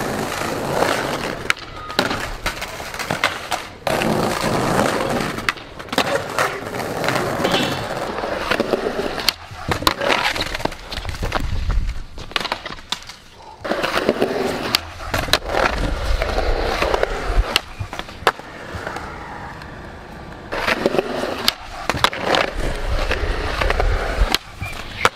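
Skateboard rolling over pavement, its wheels running with a steady rumble that is broken by sharp clacks of the board striking the ground. The rolling cuts off and starts again several times, across separate takes.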